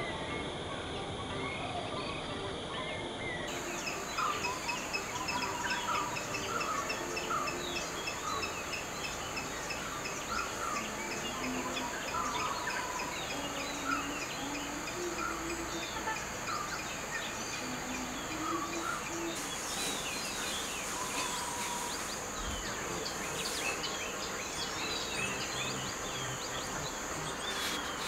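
Outdoor nature ambience: a steady high insect drone with many short bird chirps over it. The sound changes abruptly about three and a half seconds in, as at an edit.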